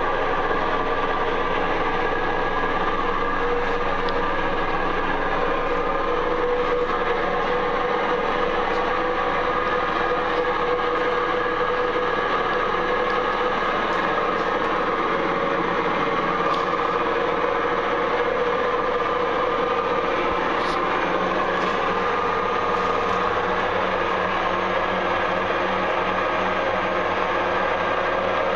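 Samsung Eco Bubble WW90645OPW washing machine on its spin cycle, making a loud, constant mechanical noise with several steady hums in it: the abnormal spin noise of a faulty machine.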